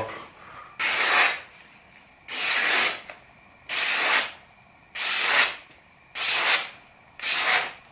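Maxace Amber 2S folding knife blade slicing through magazine paper, six quick strokes about one every second and a half. The edge has not been resharpened since use and still cuts the paper cleanly, a sign that it is holding its edge.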